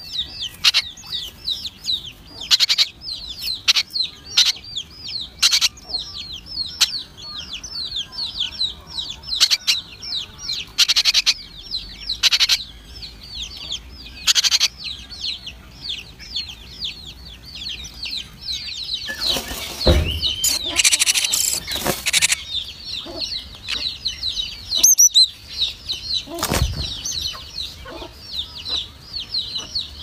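Great tit nestlings begging with a rapid, continuous stream of short high-pitched cheeps, several a second, while being fed. Scattered sharp clicks and, about two-thirds of the way through, a loud burst of rustling from the birds moving in the nest.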